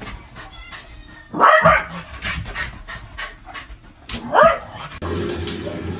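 A dog panting quickly, with two short rising yelps about a second and a half apart from the end, one near the start and one just past the middle. A steady hum takes over near the end.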